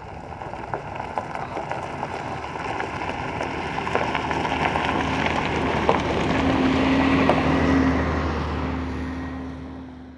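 A single-decker bus approaching on a gravel road and passing close by: engine hum and tyre noise growing steadily louder, loudest about seven to eight seconds in as it goes past, then dropping away near the end.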